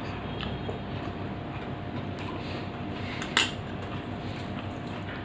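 Cutlery clinks once, sharply, against a dish about three and a half seconds in, with a few faint small clicks over a steady background hiss.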